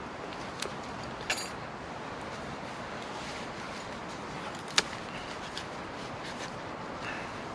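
Steady outdoor background hiss with a few small clicks: a short metallic clink about a second in, and one sharp click, the loudest sound, about five seconds in.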